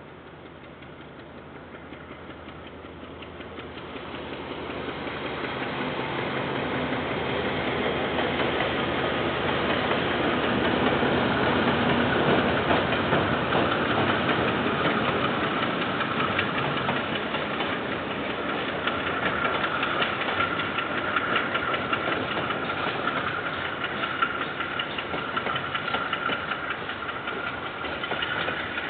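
KiwiRail diesel train passing with its locomotive engine running, growing louder over the first ten seconds as it approaches and then holding steady as it rolls by. A steady high whine comes in about two-thirds of the way through.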